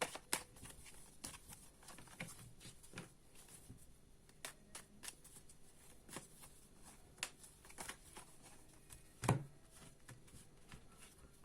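Tarot cards being shuffled and handled: scattered light clicks and rustles, with one louder knock about nine seconds in.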